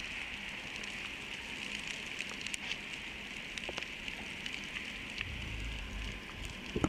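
Underwater ambience on a rocky seabed: a steady hiss with scattered sharp clicks and crackles, and a brief low rumble about five seconds in.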